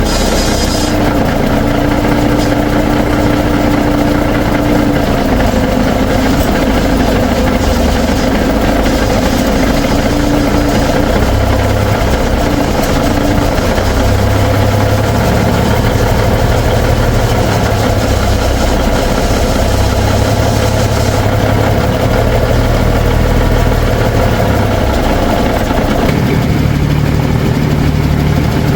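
Big Cam Cummins inline-six diesel in a Peterbilt truck running at idle on its freshly rebuilt PT fuel pump. The engine note shifts a few times, with a change about 26 seconds in.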